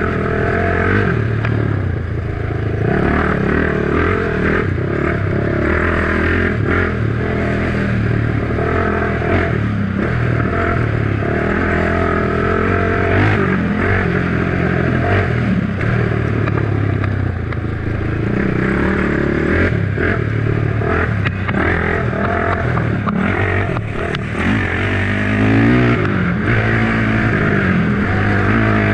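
Honda 450EX sport quad's single-cylinder four-stroke engine running hard under way, its pitch rising and falling with the throttle and gear changes. The revs climb sharply near the end.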